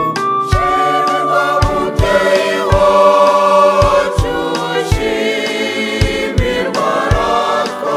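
Church choir singing a Catholic hymn in Kinyarwanda over an accompaniment with a steady drum beat, about two low strokes a second.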